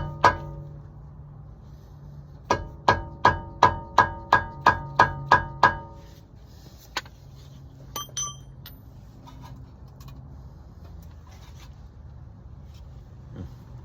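Ringing hammer blows on metal, about three a second, driving a Honda Civic's CV axle shaft through the wheel hub. A run of about ten strikes ends midway, followed by a few light clinks and taps.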